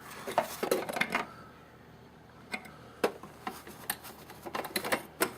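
Tools and a tubing flaring kit being handled in a tool chest drawer: light clicking and clatter in the first second, then a few scattered sharp clicks and taps over the last three seconds.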